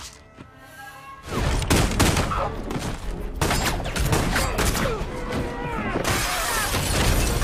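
Movie gunfight sound effects: a rapid, dense volley of gunshots with music underneath, starting after a quieter first second. Glass shatters near the end.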